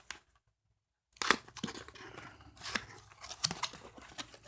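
A box and its packaging being opened by hand: sharp clicks, tearing and crinkling, starting about a second in after a short silence.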